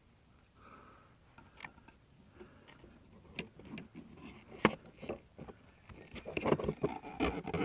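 Scattered light clicks and knocks of parts being handled during fuel pump installation, with one sharper knock a little before five seconds in and busier rattling near the end.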